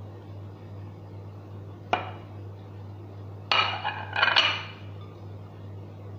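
Kitchenware handling: a single knock about two seconds in, then a brief clatter of ceramic and glass as the baking dish of chopped apples is set down on the counter, over a steady low hum.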